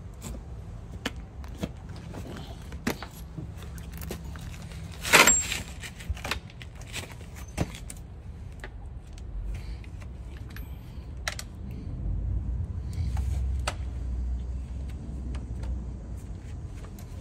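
Scattered small metallic clicks and taps from loose parts or tools being handled, with one louder clank about five seconds in. A low rumble runs under the second half.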